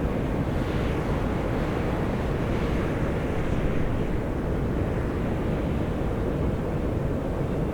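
Volcanic fumarole vents of Mt. Io (Atosanupuri) jetting steam and gas with a steady, low roaring hiss.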